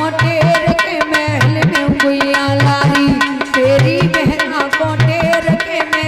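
Instrumental interlude of an Indian folk song: a melody instrument plays a bending, ornamented line over sustained notes while hand drums keep a steady repeating beat with deep bass strokes.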